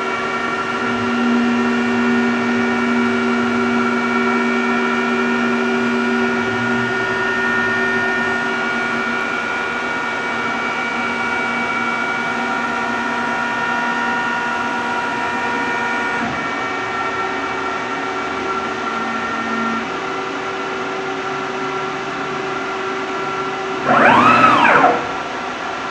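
Multicam CNC router running: a steady whine made of several tones, which shifts slightly partway through. Near the end a brief whine rises and falls within about a second, the loudest sound.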